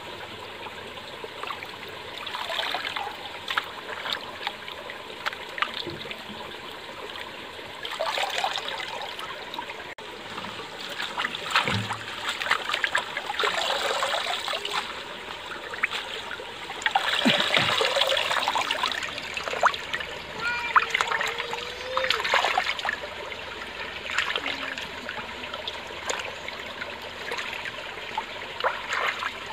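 Shallow running stream trickling while vegetables are rinsed in it by hand, with irregular splashes as tomatoes and onions are swished about and water pours off a bunch of greens lifted out of the stream.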